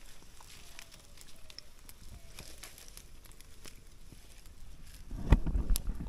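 Faint scattered crackling of a wood fire's embers, with a louder burst of low thuds and rustling near the end.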